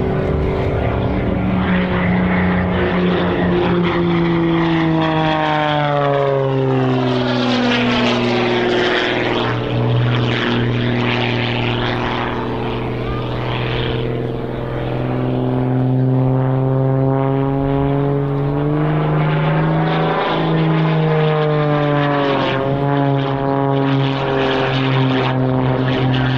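Single-engine aerobatic propeller plane flying a display routine, its engine and propeller note continuously changing pitch as it manoeuvres. The pitch glides down steeply about a quarter of the way in and dips again near the end.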